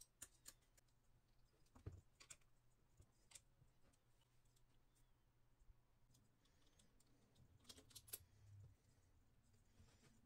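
Near silence: faint room tone with a few scattered light clicks and taps, a small cluster about two seconds in and another near the end.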